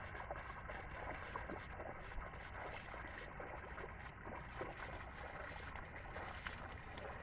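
Faint, steady sloshing of water and mud with scattered small splashes as a pair of oxen draw a plough through a flooded rice paddy.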